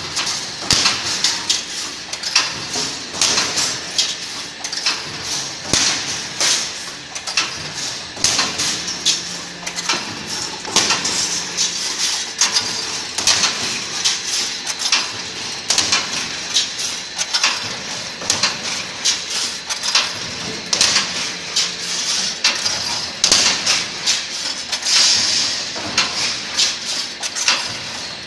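1.5 m automatic welded wire mesh machine running: a string of metallic clanks and knocks, about one or two a second, as it welds cross wires onto the line wires and advances the mesh.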